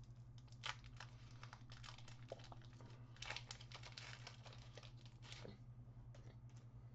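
Faint crinkling and rustling of Pokémon trading cards and their foil booster-pack packaging being handled, with a few soft ticks scattered through it.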